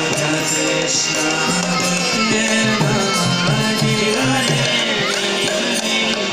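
Indian devotional music: voices singing over hand-drum and jingling percussion, continuous and steady in level.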